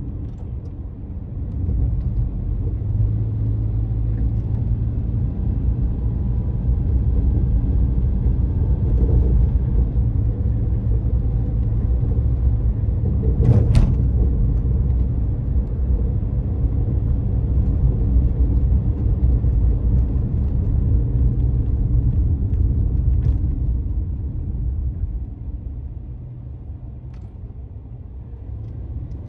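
Car driving, heard from inside the cabin: a steady low rumble of engine and road noise. There is one sharp knock about halfway through, and the rumble grows quieter near the end.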